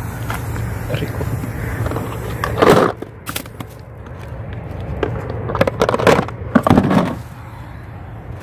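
Hard plastic cooler box being handled: a loud bump about three seconds in, then a quick run of clicks and knocks as the lid is lifted and shut over the fish tray, over a steady low hum.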